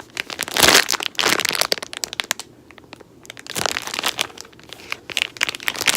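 Plastic packaging crinkling as a foam squishy is squeezed and handled inside it, in several bursts of crackling.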